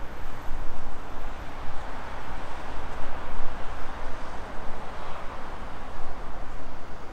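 Steady outdoor background noise with a low rumble underneath, swelling a little around the middle.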